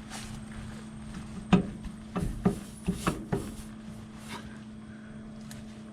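A cluster of about six sharp knocks and clunks over two seconds as the rebuilt hydraulic pump is worked further onto its pickup tube against the tractor housing, over a steady low hum.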